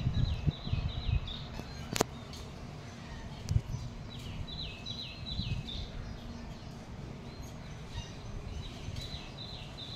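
A small bird chirping in quick runs of four or five short, falling high notes, three times, over a steady low rumble. A single sharp click about two seconds in.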